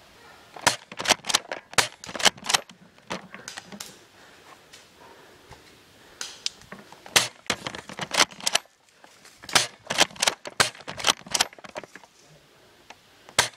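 Airsoft guns firing: sharp snapping shots in quick strings, several bursts a few seconds apart.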